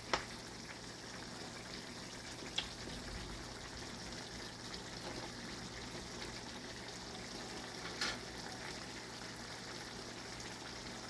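Food sizzling quietly in a pan, steady throughout, with three brief light clicks.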